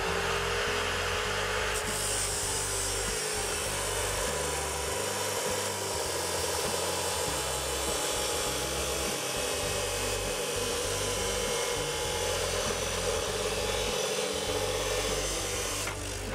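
Metabo CS 23-355 abrasive metal cut-off saw cutting a metal bar: a steady motor whine under a harsh grinding hiss from its 355 mm abrasive disc. The hiss brightens about two seconds in, and the sound drops away near the end.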